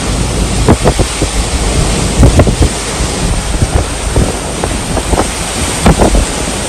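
Typhoon wind gusting against the microphone: a steady rush of noise broken by frequent, irregular loud buffeting thumps.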